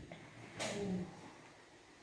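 A brief scratchy rustle about half a second in, lasting about half a second: a kitten's paw scraping against a window's mesh insect screen.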